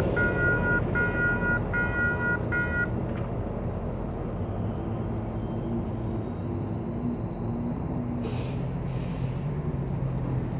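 Level-crossing warning bell sounding as a repeating tone, a little faster than once a second, which stops about three seconds in, over the fading rumble of a departing GO Transit commuter train. Softer road-traffic engine noise follows as the crossing clears.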